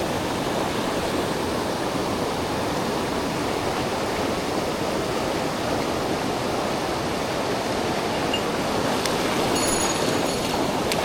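Steady rush of a mountain stream's water flowing over rocks.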